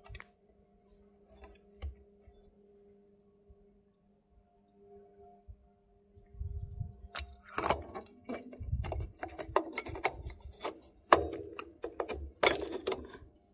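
A faint steady hum, then from about seven seconds in a quick run of clicks, knocks and rubbing as a copper pipe is handled against a perforated metal panel.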